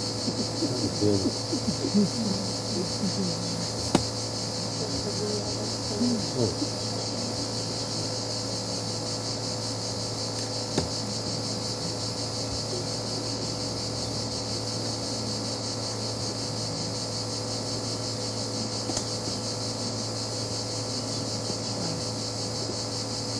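Steady high-pitched chirring of insects, over a low steady hum. Faint voices murmur briefly in the first several seconds, with a sharp click about four seconds in.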